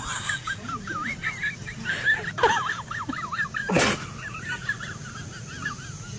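Birds chirping and warbling steadily in quick, wavering notes. Two short, sharp calls sweep downward in pitch, about two and a half and four seconds in.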